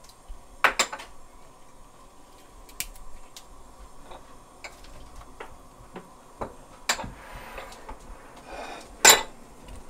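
Soy-based braising liquid simmering in a wide pan with chicken and dried chilies, giving scattered small clicks and pops; the sharpest click comes near the end.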